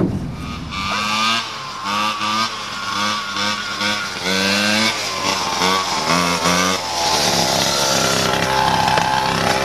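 A pocket bike's small two-stroke engine revving in a string of short throttle blips, each rising in pitch, then running steadily at higher revs from about seven seconds in.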